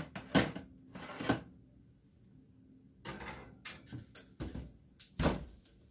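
Baking pans of batter knocking and clattering onto the metal oven rack, with handling noise between, then the oven door shut with a loud thump about five seconds in.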